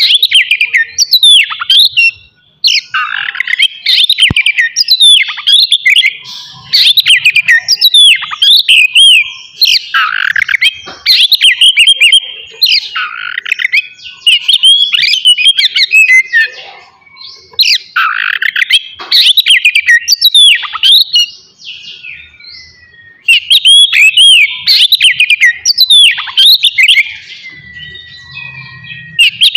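Oriental magpie-robin (kacer) singing loudly in long, varied phrases of quick sweeping whistles and chattering notes, broken by a few short pauses.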